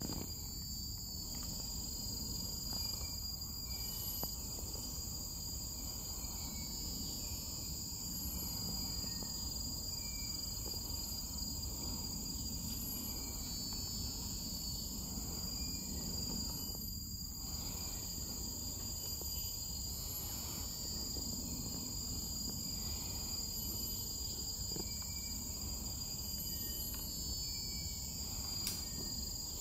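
Steady chorus of insects, a continuous high-pitched drone that does not let up, over a low steady rumble, with a few faint short chirps scattered through.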